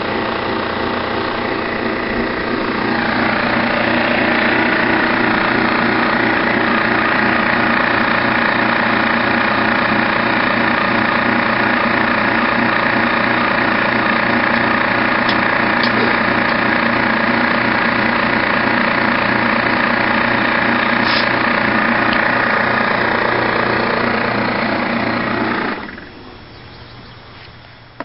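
Refrigerant recovery machine running steadily, its compressor pumping R-22 refrigerant out of a heat pump into a recovery cylinder. The hum grows louder about three seconds in and drops away sharply near the end.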